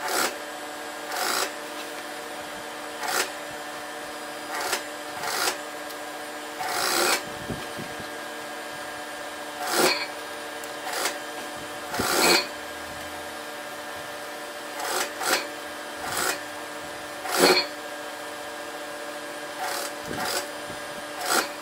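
Sewing machine stitching through denim in short bursts, about fifteen quick runs of a half to one second each at irregular intervals, over a steady hum. This is stay stitching along the waistline of jeans.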